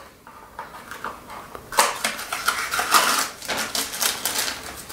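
Small metal mounting parts being unwrapped from plastic packaging by hand: crinkling and light metallic clicks and clinks, fairly quiet at first, then a dense run of them from about two seconds in.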